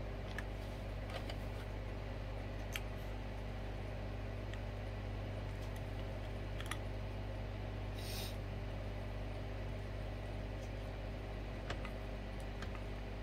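Faint, scattered clicks and light handling noises from small parts and tools being worked on a record player, with one brief scratchy noise about eight seconds in, over a steady low hum.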